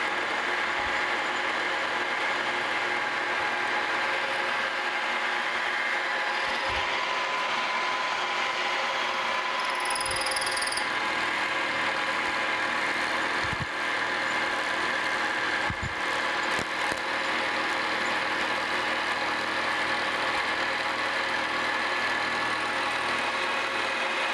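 Vertical milling machine running, its 1/4-inch end mill feeding down into a clamped metal plate to cut clearance for a cap screw head: a steady motor and spindle hum with cutting noise.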